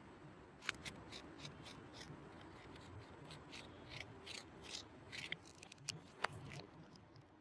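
Marker pens being handled and set down on asphalt: a string of light clicks and scrapes as they tap against each other and the ground, with two sharper knocks, one near the start and one near the end.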